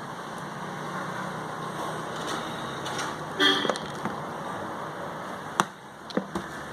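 Steady background traffic noise with a short vehicle horn toot about three and a half seconds in, followed by a few sharp clicks near the end.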